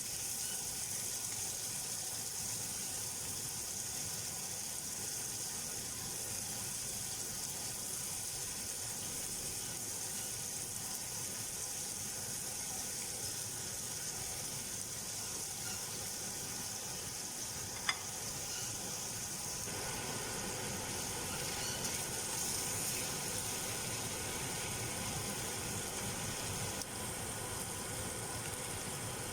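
Beef frying in a pan, a steady high-pitched sizzle, with one sharp click about eighteen seconds in.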